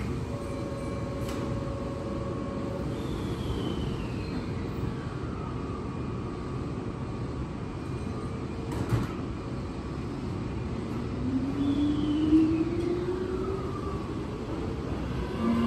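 Keihan 7000 series electric train pulling out of the station: over a steady rumble, a whine from its VVVF traction inverter and motors rises steadily in pitch through the last few seconds as it gathers speed. A sharp clack comes about nine seconds in, and two high whistling tones fall in pitch, one early on and one as the train starts to move.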